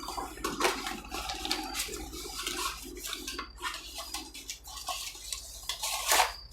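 Rustling and irregular light clicks and crackles of cosmetic product packaging being handled, with a louder crackle near the end.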